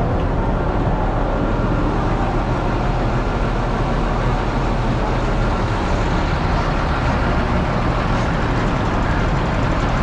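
Steady motor vehicle noise: an engine hum with road noise, running evenly without a break.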